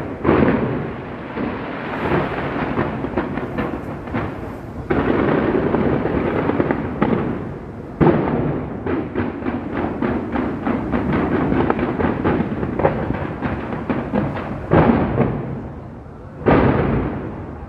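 Aerial fireworks bursting in a continuous barrage: heavy booms, each with a long rolling rumble, and a rapid string of sharp crackles in the middle. The booms are loudest about eight seconds in and again near the end.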